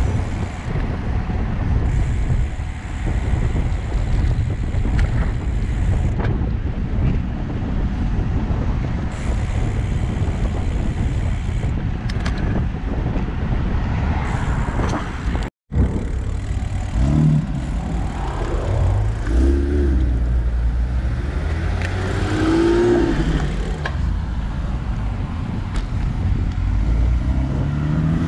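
Wind buffeting the microphone of a handlebar camera on a moving road bicycle, over steady road rumble. The sound drops out for an instant a little past halfway, and in the second half passing car engines rise and fall in pitch.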